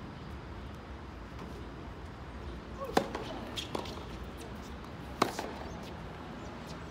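Tennis balls struck with rackets during a rally: a sharp pop about three seconds in, fainter hits or bounces shortly after, and a second sharp pop about two seconds later.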